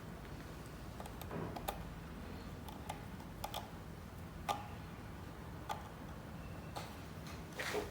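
Irregular light clicks and taps of small hand work on wires and screw terminals while a door lock is wired to an intercom's NO and COM terminals.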